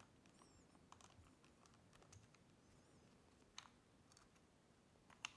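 Near silence broken by a few faint, sharp clicks of a screwdriver on the grip screws and of a wooden grip panel being lifted off a 1911 pistol frame.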